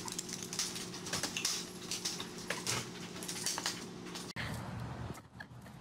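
A mesh baby gate clattering down onto a tile floor and rattling as dogs scramble over it, with a run of sharp clicks and clatters over a steady low hum. The sound breaks off abruptly a little past four seconds in, giving way to quieter, scattered knocks.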